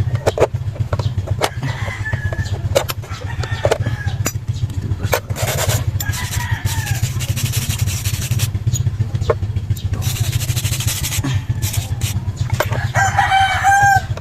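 A rooster crowing, with one crow around the middle and a louder one near the end, over a steady low hum. Sharp clicks and two stretches of scraping noise, about a third and two thirds of the way in, run alongside.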